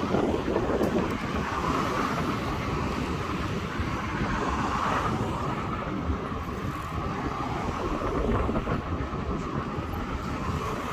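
Inmotion V11 electric unicycle riding along a paved path: a steady rush of wind and rolling noise.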